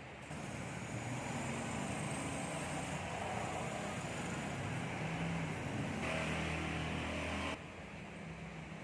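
Steady background rumble and hiss with a low hum, which cuts off abruptly about seven and a half seconds in.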